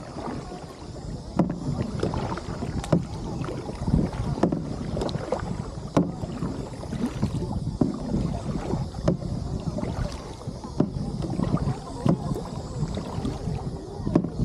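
Kayak paddling: sharp splashes and knocks of the paddle strokes, the strongest about every second and a half, over a low rumble of wind on the microphone.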